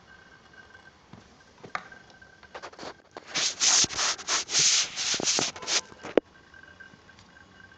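Rough rubbing noise in a quick run of strokes lasting about three seconds, loud against a faint on-and-off high whine, with a few soft clicks just before it.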